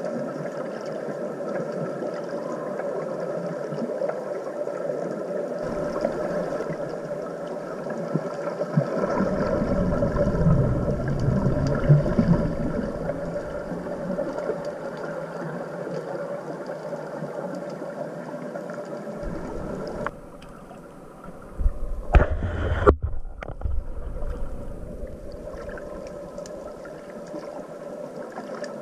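Underwater sound, muffled by the water and the camera housing: a steady hum of boat engines carried through the sea. There is a low bubbling rush about ten seconds in, and a few sharp knocks with another rush a little past two-thirds of the way through.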